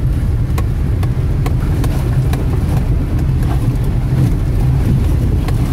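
Car driving over a rough, muddy dirt track, heard from inside the cabin: a steady low rumble of engine and tyres, with scattered sharp clicks and knocks.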